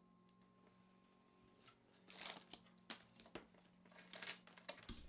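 A run of short scraping, rustling noises, several in quick succession, starting about two seconds in over a faint steady hum.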